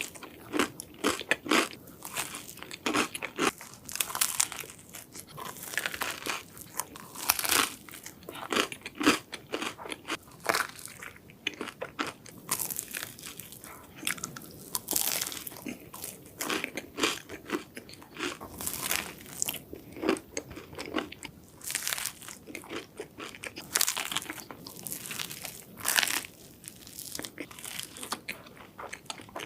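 Close-miked eating: crunchy bites into a waffle with whipped cream, followed by chewing, repeated irregularly with many sharp crunches.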